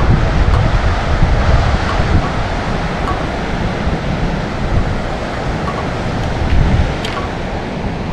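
Wind buffeting the microphone over the steady wash of ocean surf, rising and falling in gusts, with a few light clicks.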